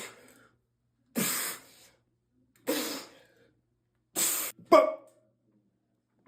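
A person's forceful, breathy exhales, coming about every second and a half. The last one is followed by a loud, sharp voiced grunt near the end.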